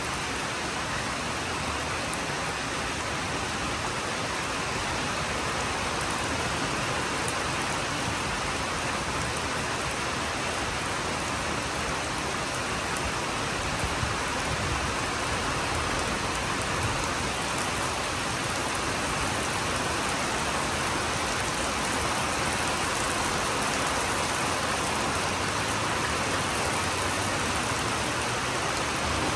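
Steady rain falling, an even hiss of drops hitting the ground and leaves.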